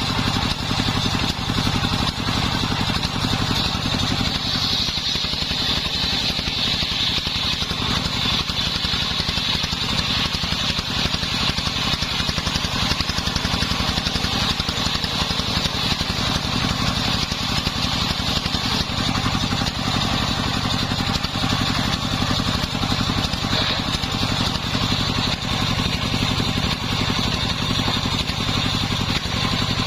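Engine-driven homemade circular saw running steadily while sawing sengon wood, a continuous engine hum under a high cutting sound that is strongest about four to eight seconds in and again near the end.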